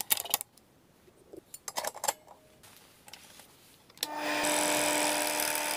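Clicks and rattles as a Bell & Howell film projector is handled, then about four seconds in its switch is flipped and the projector motor starts and runs steadily.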